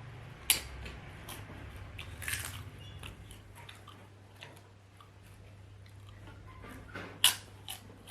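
Close-up eating sounds of someone biting and chewing potatoes. Sharp clicks come about half a second in and again, loudest, near the end, with a short crunchy burst around two seconds in.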